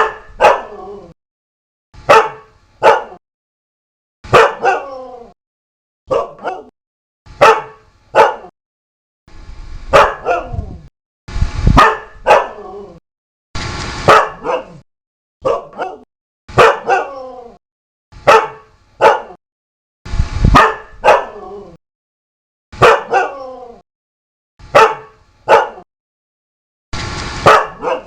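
A dog barking over and over, single barks and quick pairs every second or two, each bark falling in pitch.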